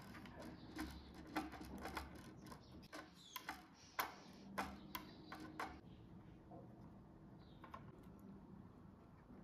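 Faint, irregular clicks and taps, a dozen or so over about six seconds with the sharpest about four seconds in, then dying away.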